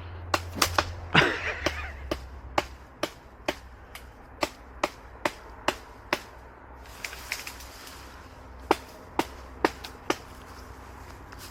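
Repeated sharp chopping strikes of a cutting blade into brush and small trees, about two a second, with a pause of a couple of seconds in the middle.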